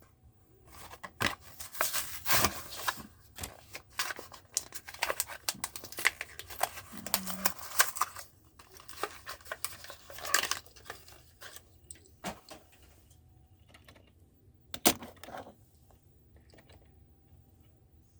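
A Hot Wheels blister card being torn open: cardboard ripping and the plastic bubble crinkling in a dense run of rips and crackles for about ten seconds, then scattered clicks and one sharp snap later on.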